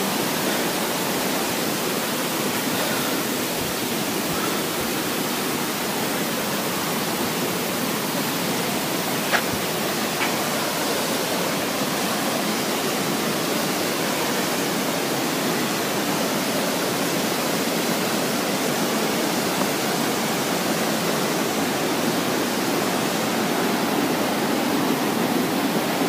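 Steady rushing of a waterfall, water pouring down over rock, with two small clicks about nine and ten seconds in.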